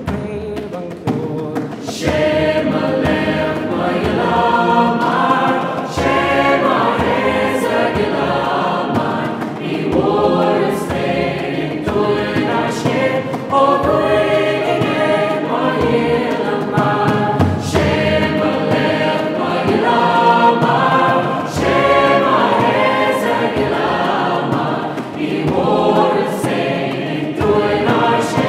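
Background music: a choir of voices singing together, growing louder about two seconds in.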